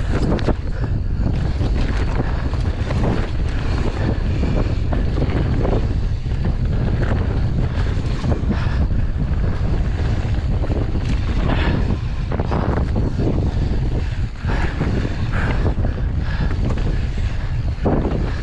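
Strong wind buffeting the camera microphone as a mountain bike descends a dry dirt trail at speed, with the tyres running over loose dirt and the bike knocking and rattling over bumps.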